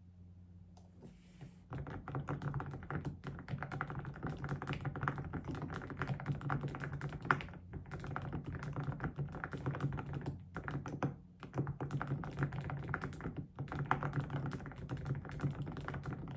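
Typing on a computer keyboard: a fast, dense run of key clicks starting about two seconds in, with a few brief pauses.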